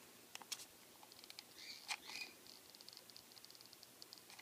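Faint clicks and a run of quick light ticks from a hot glue gun being squeezed, with a couple of short squeaks, as hot glue is laid down the centre of a grosgrain ribbon strip.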